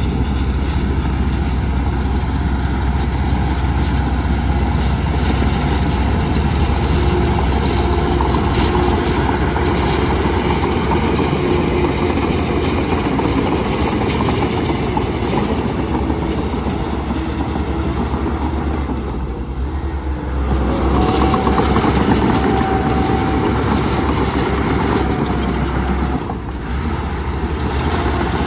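Heavy earth-moving machine's engine running steadily under work, with two brief dips in loudness, one about two-thirds of the way in and one near the end.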